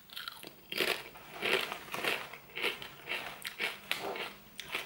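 Hand-cooked potato crisps being bitten and chewed close to the microphone, a run of crisp crunches about two a second.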